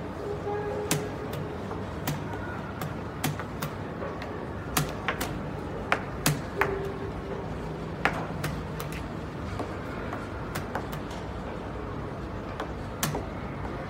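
Chess pieces clacking down on the board and chess clock buttons being hit during a fast blitz game: a dozen or more sharp clicks at uneven intervals.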